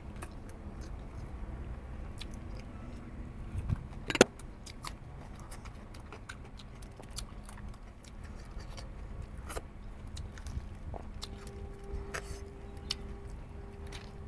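A person eating goat head: chewing, with many scattered sharp clicks and crunches and one loud click about four seconds in.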